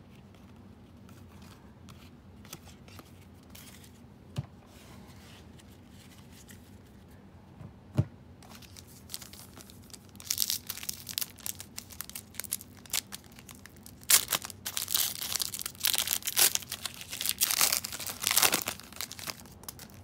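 Trading cards being shuffled by hand with soft scattered clicks, then, from about halfway, the foil wrapper of a 2018-19 NBA Hoops card pack being torn open and crinkled in loud bursts.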